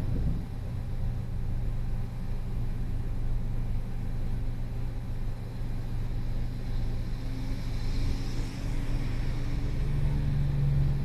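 Honda N-BOX kei car's 660 cc three-cylinder engine idling while the car is stopped: a steady low hum, turning slightly higher and stronger near the end.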